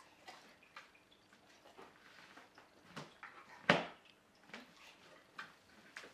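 A large dog's claws clicking and tapping on a hardwood floor as it steps around and onto a rubber paw pod, with one much louder sharp knock a little over halfway through.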